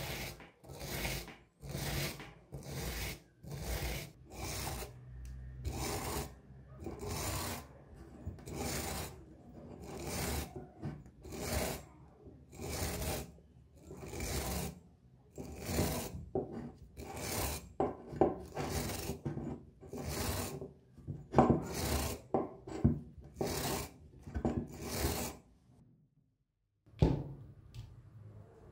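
Wire brush scrubbing the tarnished, patterned surface of a small antique brass vase in rhythmic back-and-forth strokes, about one and a half a second. The scrubbing stops a few seconds before the end, followed by a single knock.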